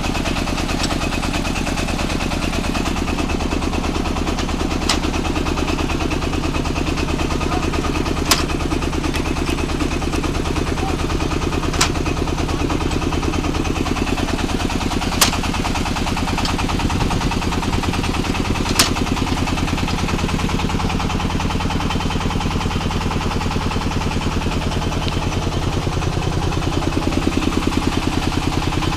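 Red brick press machine running steadily under engine power, with a sharp knock about every three and a half seconds, five times in a row, before the knocks stop and the running sound shifts slightly.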